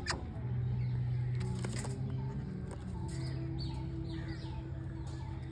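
Birds flapping their wings at a feeding spot, with a few short high chirps, over a steady low hum.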